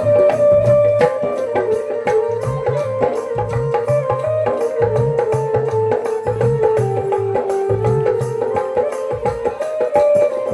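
Indian devotional music: tabla playing a steady rhythm under a held melody that moves in stepped notes.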